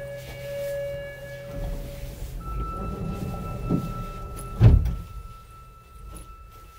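Subway car door-closing sequence on a Sapporo Toho Line 9000-series train at a station stop. A short electronic chime is followed by a higher steady warning tone held for several seconds, and the doors shut with a heavy thud about four and a half seconds in, over the low rumble of the stopped train.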